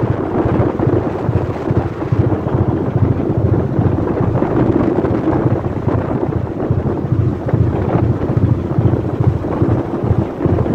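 Wind buffeting the microphone on the deck of a fishing trawler, over a steady engine drone and the rush of rough sea.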